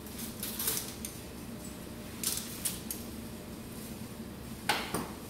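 Stainless-steel laparoscopic instruments clinking and rattling against one another and the perforated steel instrument tray as they are handled and sorted. There are three short clusters of clatter: about half a second in, around two seconds in, and near the end.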